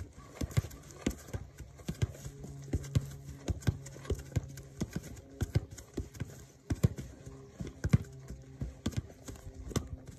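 Soccer ball being kicked by a rubber boot against a block of stacked glulam wood and rebounding: a steady run of sharp knocks, about two a second, as the ball strikes the boot and the wood in turn.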